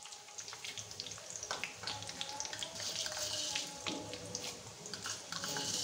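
Cumin seeds, curry leaves, ginger and green chilli sizzling in hot ghee and groundnut oil in a kadai, with many small crackles.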